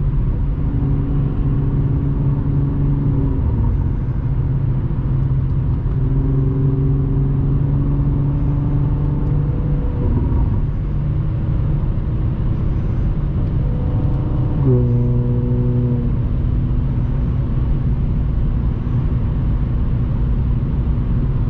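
Supercharged Audi S4's 3.0 V6, through an AWE exhaust with test pipes, heard from inside the cabin while cruising. The engine drone is steady, and its pitch steps up or down a few times with changes in revs.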